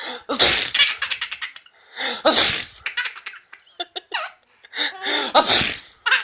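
Young child laughing hard at a fake sneeze, in four bursts of rapid, pulsing laughter with short pauses between them.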